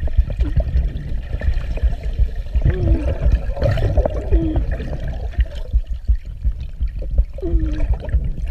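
Water heard through a camera held under the surface of a swimming pool: a steady, muffled low rumble of moving water.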